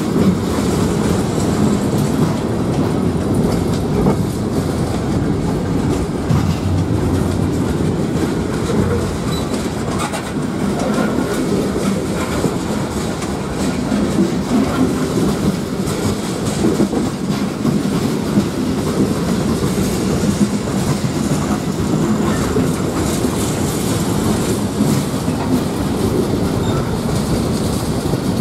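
Freight cars (open-top hoppers and covered hoppers) rolling steadily past close by: a continuous rumble of steel wheels on rail, with scattered clicks as the wheels cross the rail joints.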